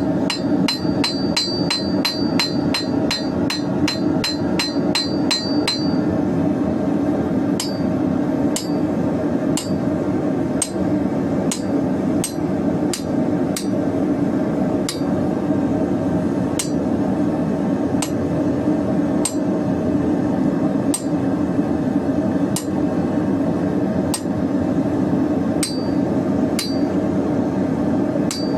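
Hand hammer striking hot steel bar on an anvil, drawing out a bird's wings: a quick run of ringing blows, about three a second, for the first six seconds, then slower, evenly spaced blows to the end. A steady roar of the forge runs underneath.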